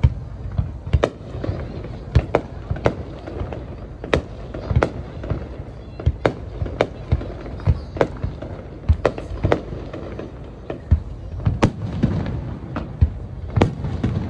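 Aerial fireworks bursting: a long run of sharp bangs in irregular succession, roughly two a second, over a steady low rumble.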